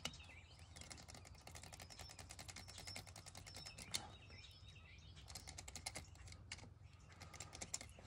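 Utility knife blade cutting the ends of rubber tire-plug strings flush with a tractor tire, a faint, rapid run of small clicks and scrapes.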